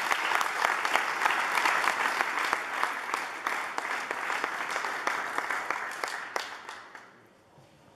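Audience applauding, dense clapping that dies away over the last couple of seconds.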